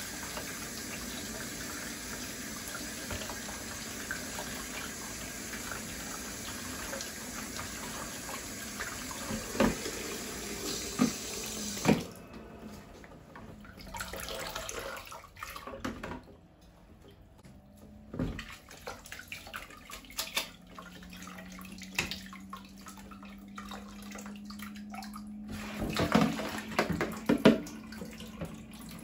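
Kitchen tap running steadily onto chopped spinach in a stainless steel colander, shut off abruptly about twelve seconds in. Afterwards the rinsed spinach drips into a bowl below, with scattered clinks and a few louder knocks of the colander near the end.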